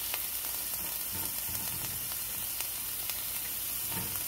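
Diced onion and garlic sizzling in hot oil in a frying pan: a steady hiss with small scattered crackles.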